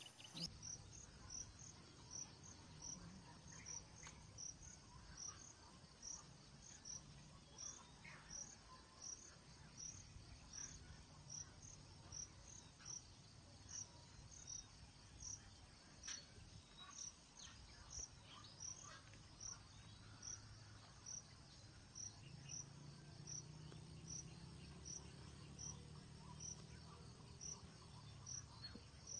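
Faint, high-pitched insect chirps repeating at an even pace, about three every two seconds, over a quiet low background rumble.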